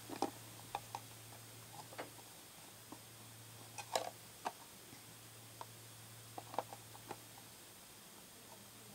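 Scattered light clicks and taps of small plastic toy parts being handled and fitted into place, the loudest about four seconds in, over a faint steady low hum.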